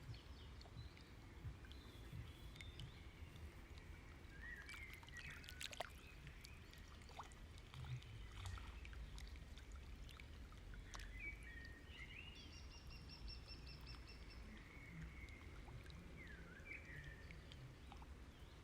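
Near silence with faint bird chirps and short calls scattered through, over a low steady rumble.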